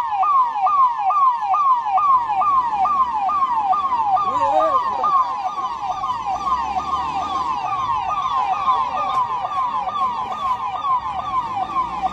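Electronic emergency-vehicle siren sounding a fast, steady yelp: each cycle a quick rise and a longer fall in pitch, about three cycles a second.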